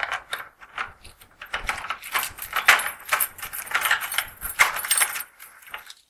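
A bunch of keys jangling and rattling against a door lock, a long run of irregular metallic clicks and jingles as the door is unlocked.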